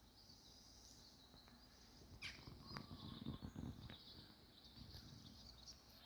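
Near silence of open countryside, with faint bird chirps and a few soft low rumbles.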